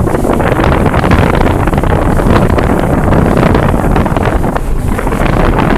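Loud, steady wind buffeting the microphone aboard a motorboat under way, with the rush of water and the boat's running noise mixed in.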